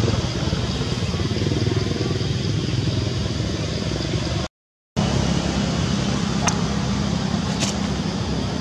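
Steady drone of motor-vehicle engine noise. It drops out abruptly for half a second about halfway through, and a few short sharp clicks come near the end.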